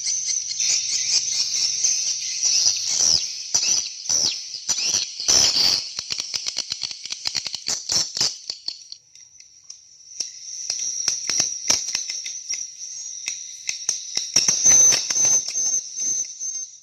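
Swiftlet calling sound played through a speaker by a Caberawit CR 608 swiftlet call amplifier: dense, high-pitched electronic chirping and twittering with many clicks. It dips quieter about halfway through and cuts off abruptly at the end.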